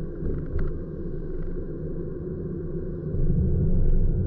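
Road noise heard inside a moving car's cabin: a steady low rumble of tyres and engine, growing louder about three seconds in.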